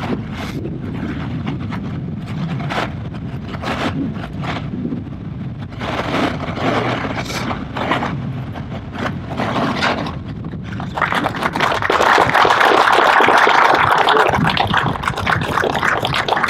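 Outdoor audience applause: scattered claps over a low wind rumble on the microphone, swelling into fuller, louder applause about eleven seconds in.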